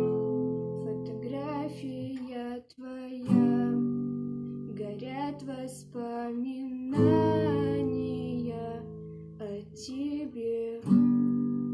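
Acoustic guitar strumming chords, a new chord struck every three to four seconds and left to ring, with a woman singing over it.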